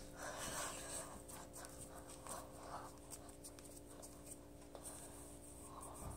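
Faint rustling and soft breathy sounds of a person dancing on carpet, in short bursts, over a steady low hum.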